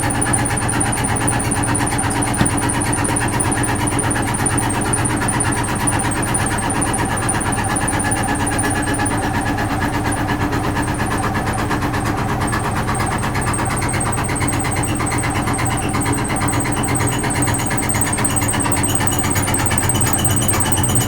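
Vintage Frigidaire Super Deluxe Automatic 50 front-loading washing machine running steadily through its cycle: a constant low motor hum with a high, steady whine above it.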